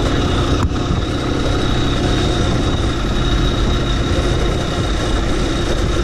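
Honda CBF 150's single-cylinder four-stroke engine running at a steady pitch, with one brief click about half a second in.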